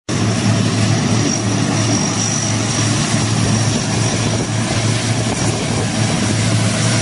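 A large engine running steadily with a low, even drone and no change in pitch.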